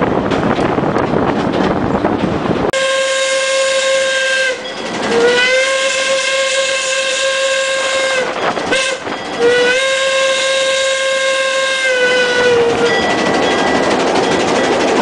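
Steam whistle of WW&F No. 10, a two-foot-gauge 0-4-4 Forney tank locomotive, blowing the grade-crossing signal: long, long, short, long, each blast sliding up in pitch as it opens and down as it closes. Before and after the whistle, the rumble of the moving train.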